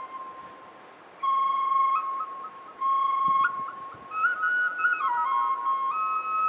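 Native American love flute tuned to 432 Hz playing a slow melody: a held note dies away, two long notes follow with short breaks between them, and from about four seconds in a quicker run of notes steps up and down.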